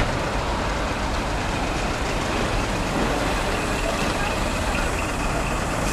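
Steady engine noise from a heavy lorry running close by, under an even hiss, with a brief click right at the start.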